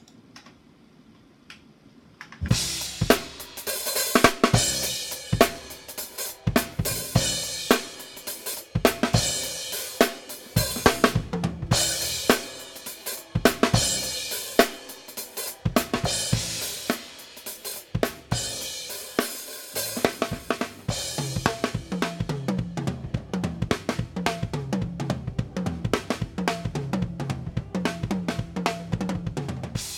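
Recorded drum kit (kick, snare, hi-hat and cymbals) played through a vintage Teletronix LA-2A leveling amplifier set to limit, while its peak reduction knob is turned. The drums start about two and a half seconds in, and a low bass line joins them about twenty seconds in.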